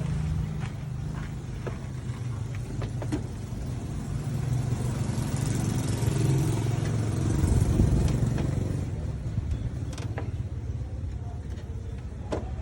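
Motor vehicle engine running steadily with a low hum, growing louder about halfway through and then easing off, with a few light clicks.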